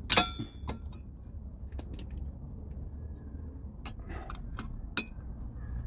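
Metal drum-brake parts clanging at the start, with a short ringing tone, then a few light clicks and knocks of parts being handled over a steady low rumble.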